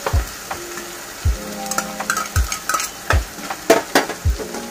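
Metal spatula stirring and scraping masala paste and chopped tomato frying in oil in a metal kadhai, with a light sizzle and irregular knocks of the spatula against the pan about once a second.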